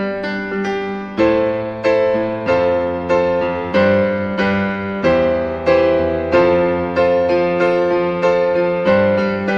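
Background music: piano or electric piano playing evenly spaced notes, about one every half second or so, each struck and fading.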